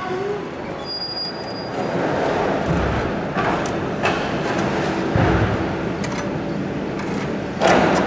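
Steel tie wire being twisted tight with a hand tool to lash an engine to a wooden pallet: a steady scraping and grinding of wire and metal, with a couple of dull bumps and a sharp, loud clank near the end.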